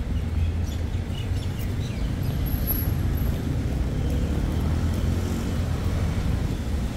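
City street ambience: a steady low rumble of passing road traffic.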